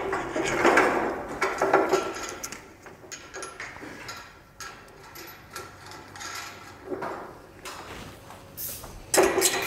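Scattered clicks, clinks and rustling from metal lift hardware being handled, as steel cable is pulled through a carriage bolt on the lift basket and snugged. The handling is busier for the first couple of seconds, sparse through the middle, and louder and denser again near the end.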